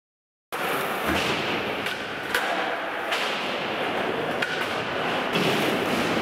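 Skateboards rolling on a concrete skatepark floor, with a scattering of sharp knocks from boards hitting the ground. The sound cuts in suddenly about half a second in, after silence.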